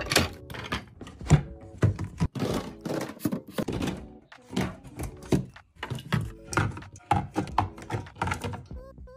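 Items being put into a mini fridge, with a quick, uneven run of knocks and clicks as things are set down and handled.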